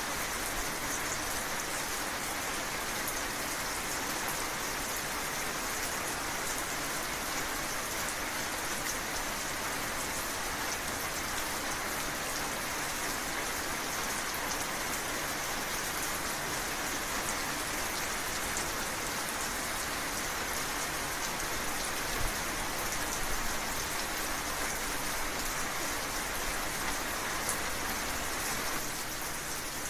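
Steady rain falling on hard surfaces, an even hiss of many drops, with one brief low thump about two-thirds of the way through.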